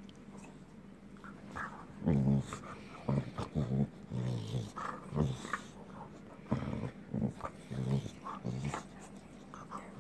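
Dogs play-growling as they wrestle and mouth each other, in a run of short low growls that starts about two seconds in.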